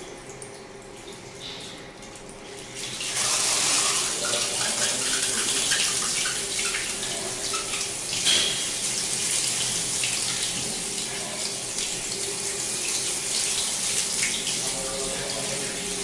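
Water running from a hand-turned faucet, starting fairly suddenly about three seconds in and then holding steady. The open tap leaks out along the threads of its spindle.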